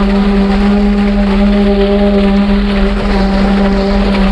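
Diesel engine of a ready-mix concrete truck running at a steady speed while concrete is discharged down its chute: a loud, even drone with a constant pitch.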